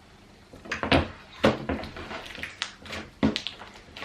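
Homemade slime being squeezed and poked by hand, giving irregular short clicks and pops, the loudest in the first half.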